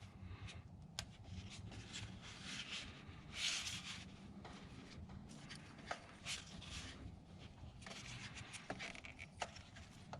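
Irregular rubbing and scraping with scattered small clicks over a faint low hum. The longest patch of rubbing comes about three and a half seconds in.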